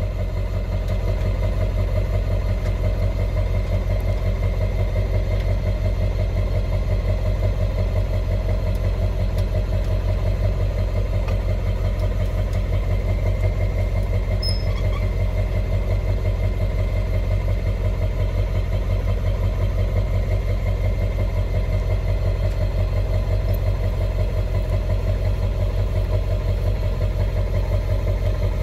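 Vehicle engine idling steadily, a low, even, rapidly pulsing hum, most likely the tow vehicle hitched to the camper.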